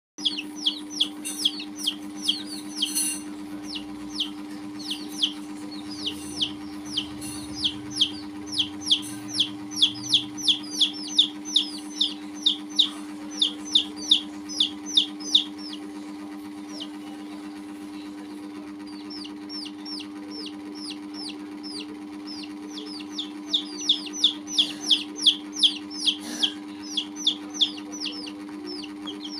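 Baby chicks peeping: a rapid run of short, high, downward-falling peeps, two or three a second, that stops for several seconds partway through and then starts again. A steady low hum runs underneath.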